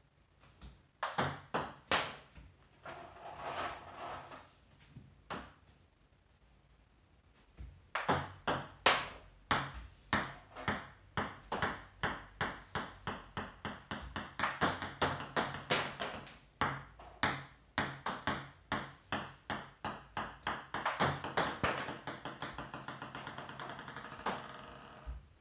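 Table tennis balls clicking: serves struck off the paddle and bouncing on the table, with balls bouncing repeatedly, sharp separate ticks, then long strings of faster and faster bounces as the balls settle. A short quiet gap comes a few seconds in, and the clicking turns dense about a third of the way through.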